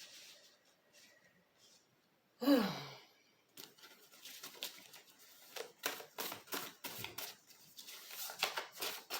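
Tarot cards being shuffled and handled by hand: a run of quick, light papery clicks and rustles that starts a few seconds in. It is preceded by a short voice sound that falls in pitch.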